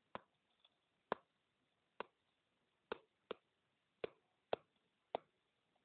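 A stylus tapping on a tablet screen during handwriting: about eight short, faint clicks at irregular intervals as the pen strokes touch down.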